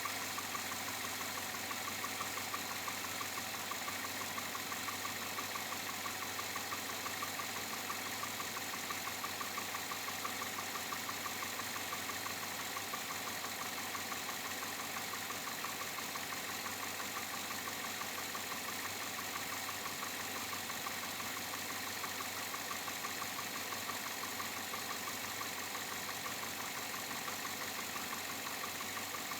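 2007 Chevrolet Avalanche V8 idling steadily with a light, even, repeating knock. The owner cannot tell whether it is engine knock or piston slap, and the knock remains after four dealership visits.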